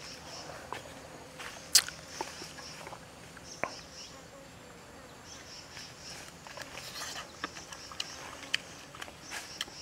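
Close eating sounds of grilled chicken being torn by hand and chewed: scattered sharp wet clicks and smacks, the loudest about two seconds in. Insects chirp in the background, most clearly in the second half.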